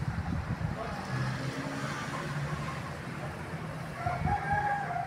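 A rooster crowing: one long call starting about four seconds in, over a steady low rumble.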